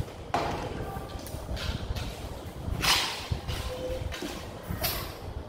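Long latex modelling balloon being handled and twisted, its inflated rubber rubbing and squeaking under the fingers in short bursts, with a few brief squeaks.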